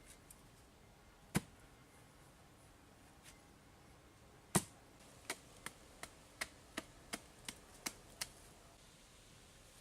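Sharp chopping strikes, a tool hitting a hard surface: two single blows about three seconds apart, then a steady run of about nine quicker strikes, roughly three a second.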